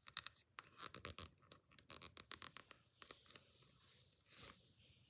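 Faint crinkling and rustling of origami paper being folded and tucked by hand, a quick run of small crackles for the first three seconds or so and one more rustle near the end.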